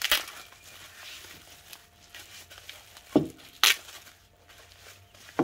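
Plastic bubble wrap crinkling and tape being pulled off as a parcel is unwrapped by hand, with loud sharp rustles at the start and about three and a half seconds in, and a short thump just after three seconds.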